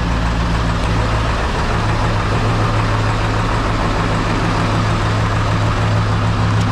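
Ford 7.3 L Powerstroke V8 turbo-diesel idling steadily, running again after sitting for over four years with a crank-no-start fault.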